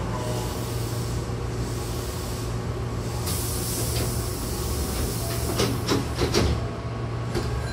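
Hankyu commuter train's double sliding doors closing: a hiss of air, then the door leaves sliding shut and knocking together in a cluster of clunks, over the steady low hum of the stopped train.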